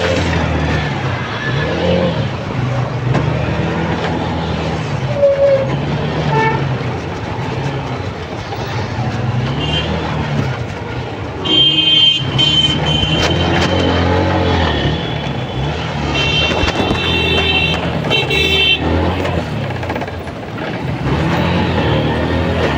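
Congested city road traffic heard from a motorbike: engines running with a pitch that rises and falls as vehicles creep along, and vehicle horns honking, loudest about halfway through and again for a couple of seconds a few seconds later.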